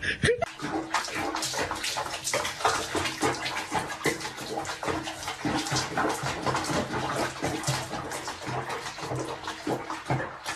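Bath water splashing and sloshing around a cat being bathed in a foamy tub, irregular and continuous.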